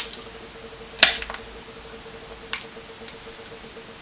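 A few sharp, short clicks and cracks from eating crab legs at close range: shell being broken and picked apart, and mouth sounds. There are four of them, at the start, about a second in, and twice more past the two-second mark.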